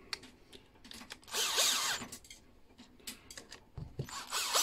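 Parkside cordless drill-driver running in two short bursts, about a second in and again near the end, driving screws into the gear head of an angle grinder. The motor's whine rises in pitch during the first burst, and there are small clicks of handling between the bursts.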